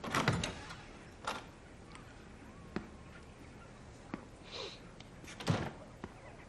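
Interior door being opened and shut: a loud clunk just after the start and another about five and a half seconds in, with a few softer knocks between.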